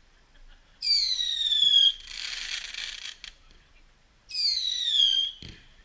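Whistling fireworks: two shrill whistles, each about a second long and sliding slightly down in pitch, with a hissing fizz between them.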